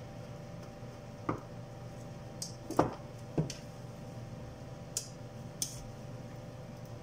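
Scattered light clicks and knocks of tools and parts being handled on an electronics workbench, about six in all, the loudest a little under three seconds in, over a steady low hum.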